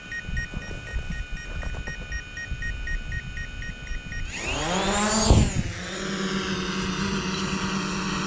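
A DJI Mavic Pro's propeller motors spin up with a quick rising whine about four seconds in, then settle into a steady buzzing hum as the drone lifts off and hovers. Before that, steady high tones, some of them pulsing, sound over low noise.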